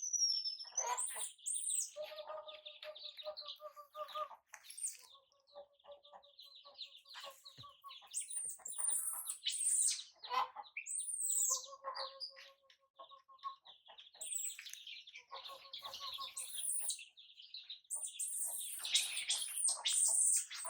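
Baby chicks peeping, many short high-pitched chirps, with a lower rapid trilling call coming in four times.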